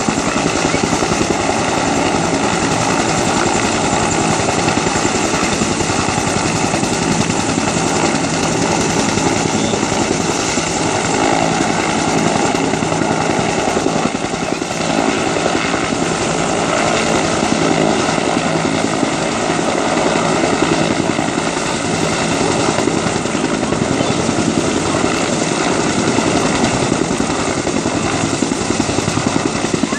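A two-bladed rescue helicopter hovering, its rotor and engine making a loud, steady noise that holds one pitch.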